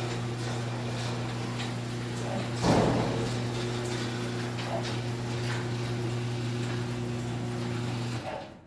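Chain-drive garage door opener running and moving the door, its motor giving a steady hum with a louder clunk about three seconds in; the motor stops near the end as the door completes its travel. The chain has just been re-tensioned and the track and chain freshly lubricated.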